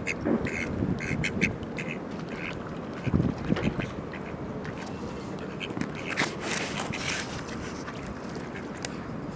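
Birds calling: a quick run of short calls in the first two seconds, then scattered calls, with a brief rustling burst about six seconds in.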